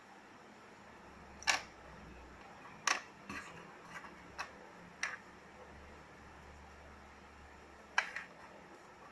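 Small plastic Rubik's Cube pieces clicking as they are set down on a hard surface one by one: about seven sharp, irregular clicks, the loudest about a second and a half in and near the end.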